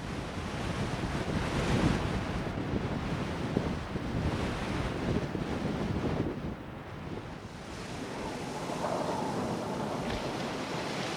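Ocean surf: waves breaking and washing in, rising and falling in surges.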